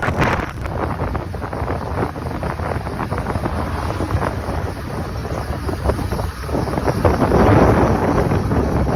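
Wind buffeting the microphone: a loud, rough rushing noise with heavy rumble that cuts in suddenly and carries on.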